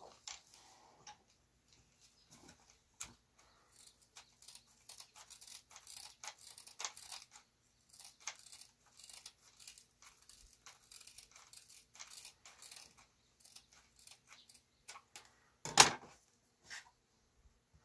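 Faint handling noise from changing a hook-and-loop (velcro) sanding disc on a switched-off hand-held sander: scattered small clicks, rustles and the tearing of the disc pulled off the pad. Near the end comes one sharp, much louder knock.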